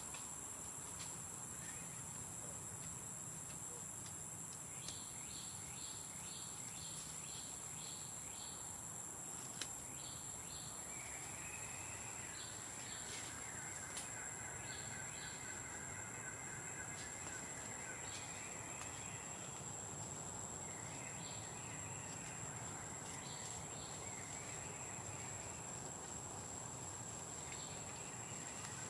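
Birds calling over a steady, high-pitched insect drone. A run of short chirps, about two a second, starts about five seconds in; longer repeated call phrases follow and recur through the rest.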